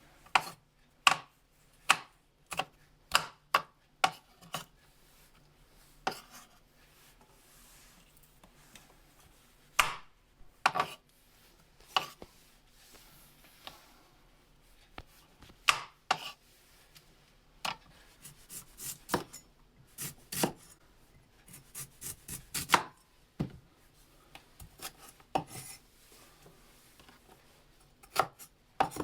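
Knife chopping on a cutting board: irregular sharp knocks, some single and some in quick runs of several strokes, with short pauses between.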